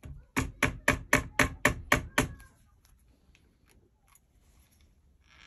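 A hammer tapping a pin punch about eight times in quick succession, about four blows a second, driving a barrel pin out through the wooden stock of an Ardesa Pennsylvania .45 percussion long rifle.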